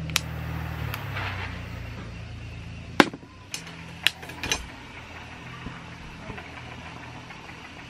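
Sharp clicks as a small gas canister lantern is lit with an extendable torch lighter, five in all, the loudest about three seconds in. A low steady hum runs underneath and fades about a second in.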